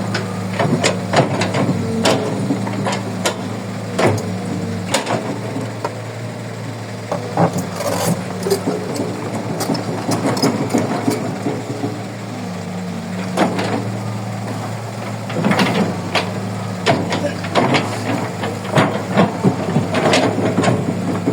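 Kobelco 135 hydraulic excavator's diesel engine running steadily under work, with frequent sharp clanks and knocks as it digs and handles earth and rock.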